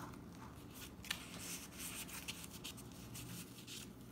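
Faint rustling and brushing of paper and card as loose cards, a tag and pages of a handmade paper journal are handled and moved, with a few light taps, the sharpest about a second in.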